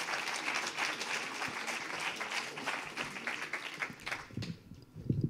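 Audience applauding, the applause dying away about four seconds in, followed by a few low thumps near the end.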